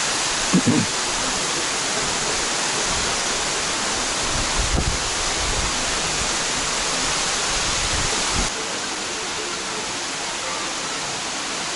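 Steady rush of water from a large waterfall falling close by, an even wash of noise, with a few low thumps on the microphone. It gets a little quieter about eight and a half seconds in.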